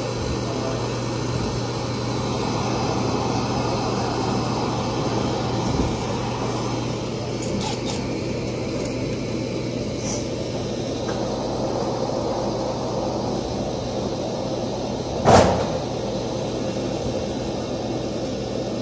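Steady machinery hum with a rushing noise, and one sharp knock about fifteen seconds in.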